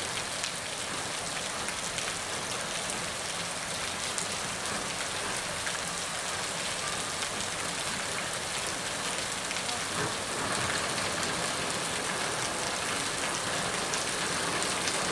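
Heavy rain falling steadily on a wet paved street and puddles, a dense even hiss that grows slightly louder about ten seconds in.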